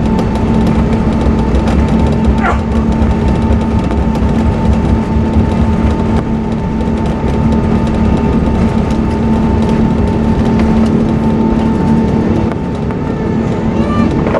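Cabin noise of an Airbus A380 taxiing on its Rolls-Royce Trent 900 engines at low power: a steady low rumble with two steady humming tones. A brief falling whine sounds about two and a half seconds in.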